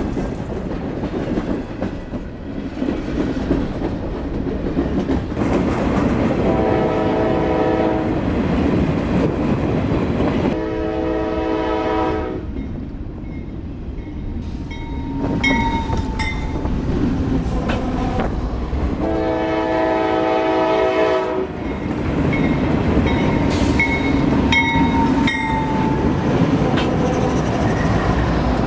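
Freight train rolling past on the rails with steady rumble and clickety-clack of wheels, while a diesel locomotive horn sounds three long blasts, about six, ten and nineteen seconds in. Between and after the later blasts a grade-crossing bell rings in quick, even strikes.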